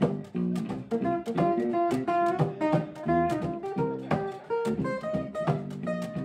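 Live instrumental music led by a picked acoustic guitar playing quick runs of notes.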